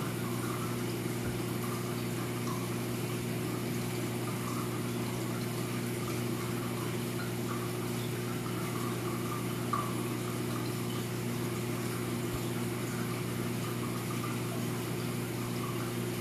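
Saltwater reef aquarium's pumps running, a steady low electric hum with a light gurgling and trickling of water.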